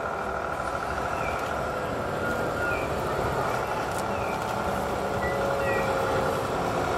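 Road vehicles passing slowly, engine and tyre noise growing gradually louder as they approach. A short high chirp repeats about every second and a half.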